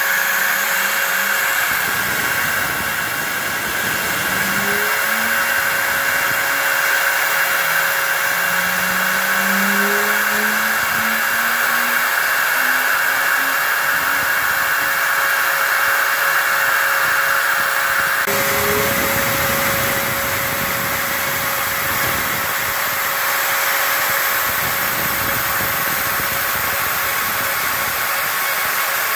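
CNC router spindle running steadily while it mills a groove in pink foam, with the dust-extraction hose drawing air alongside. Short rising whines from the axis drive motors come and go as the gantry moves, and the steady hiss changes abruptly about 18 seconds in.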